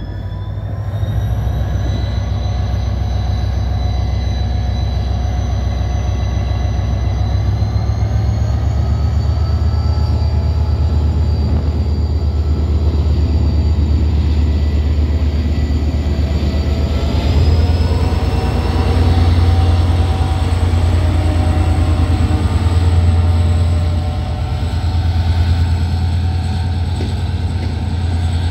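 EMD GT22CW diesel-electric locomotive pulling away with a passenger train under power: a heavy low engine rumble with whining tones that rise in two steps as it throttles up and gains speed. This is followed by the coaches rolling past on the rails.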